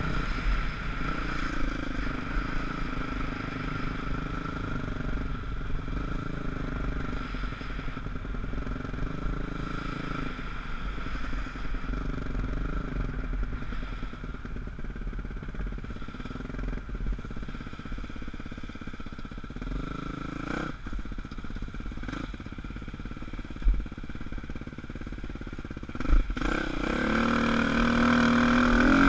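Dirt bike engine running under the rider, its pitch rising and falling with the throttle along the trail; near the end it revs higher and gets louder.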